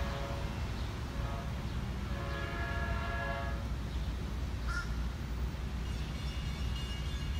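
Nathan K5LA air horn on an EMD F40PH-2CAT diesel locomotive blowing for a grade crossing as the train approaches: a short chord about a second in, then a long chord from about two to three and a half seconds. A crow caws once near five seconds, over a steady low rumble.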